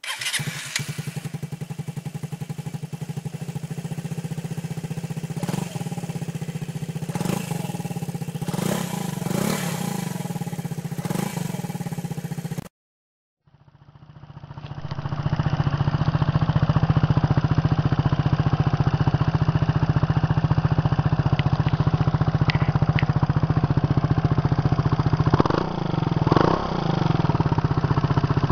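Gilera Nexus 125 scooter's single-cylinder four-stroke engine idling through two aftermarket exhausts in turn. First comes a black slip-on silencer, with a few short sharp sounds over the idle. After a brief break comes a LeoVince silencer idling steadily, with two quick throttle blips near the end that fall back to idle.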